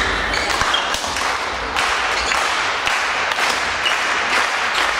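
Badminton doubles rally: rackets hitting the shuttlecock and the players' quick steps, with a few short shoe squeaks, over crowd noise that grows from about two seconds in.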